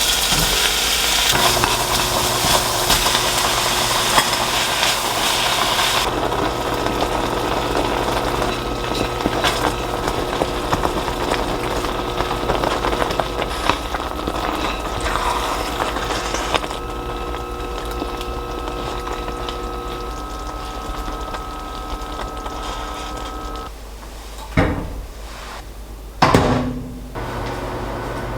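Kitchen cooking sounds: water running hard for about the first six seconds, then a steady appliance-like hum with several held tones, and a few sharp knocks and clatters near the end.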